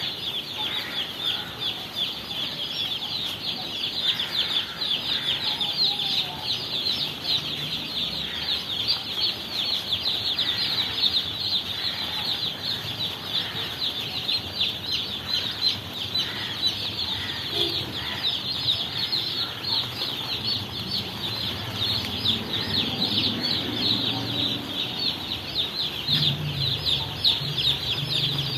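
A flock of day-old broiler chicks peeping together: a dense, continuous chorus of many overlapping high chirps.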